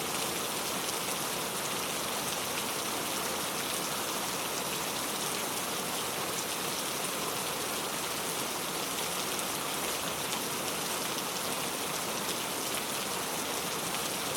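Steady rain falling, an even hiss with many fine drop ticks, no thunder.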